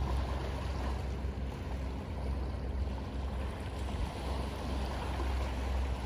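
Small waves washing onto a sand-and-pebble shore, over the steady low drone of a motorboat's engine.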